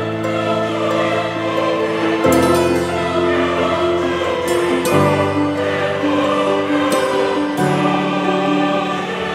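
Background music: long held chords sung by a choir, the chord changing about every two and a half seconds.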